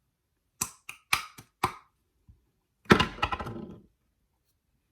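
Items and packaging being handled and set down: a run of quick knocks and clacks, then a longer, louder clatter about three seconds in.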